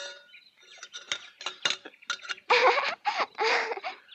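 Light metallic clinking and jingling, like small bells or metal objects knocking together, several sharp strikes in the first couple of seconds. Then three short, loud calls with a wavering pitch.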